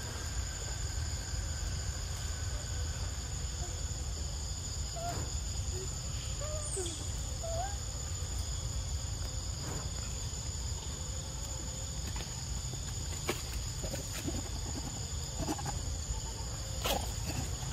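Forest ambience: a steady high-pitched insect drone with a low rumble underneath, a few short chirps about 5 to 8 seconds in, and scattered sharp clicks near the end.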